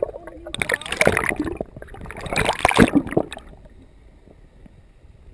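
Water sloshing and gurgling against an underwater camera housing in two noisy, crackling bursts of about a second each, then dropping to a low, quieter underwater rumble after about three and a half seconds.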